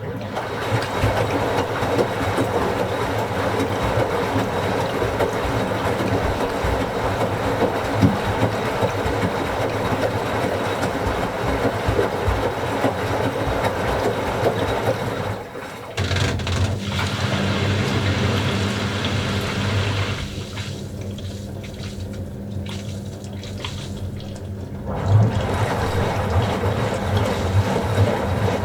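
Washing machine running, a steady rush of water with a low hum from the machine, starting suddenly. The rushing dips about halfway through, then drops away for several seconds leaving mainly the low hum, and comes back near the end.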